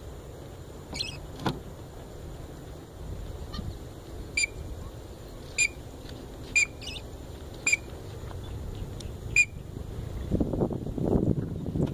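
White-breasted woodswallows calling: a series of short, sharp calls about one a second from about four seconds in, with a few fainter notes before. Near the end there is a low rumble of wind on the microphone.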